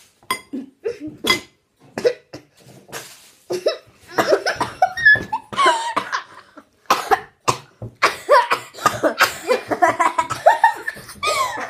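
Children coughing and sputtering on mouthfuls of dry ground cinnamon, mixed with laughter. The reaction is set off by the powder catching in the throat. Short separate coughs come first, then from about four seconds in a dense stretch of coughing and laughing.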